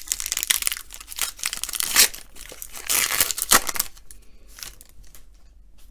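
Trading-card pack wrapper being torn open and crinkled by hand, with several loud rips in the first three and a half seconds, then softer rustling.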